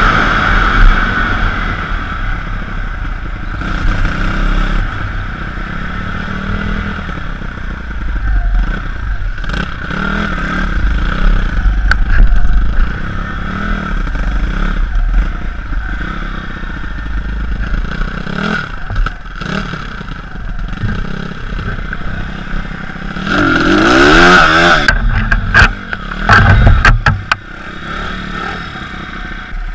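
Pit bike engine running under way over rough ground, with a quick rev rising and falling about two-thirds of the way through. Clattering knocks from the bike bouncing over the rough ground come and go, thickest near the end.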